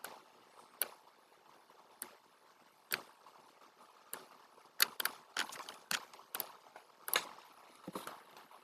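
About a dozen sharp computer mouse clicks at uneven intervals, bunched more closely between about five and seven seconds in.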